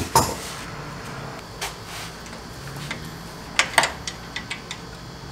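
Sharp metallic clinks and clicks of hand tools and fasteners as parts are worked loose at the front of a car: a loud clink right at the start, another about a second and a half in, and a quick run of clicks from about three and a half to four and a half seconds in, over a steady low hum.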